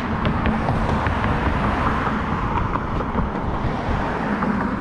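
Steady road traffic noise from cars on the street alongside, a continuous rush that swells slightly in the middle.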